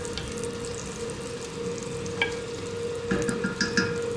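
Ginger sizzling as it sautés in melted butter with a little oil in a stainless steel pot, stirred with a wooden spatula that clicks against the pot once about two seconds in and a few times near the end. A steady hum runs underneath.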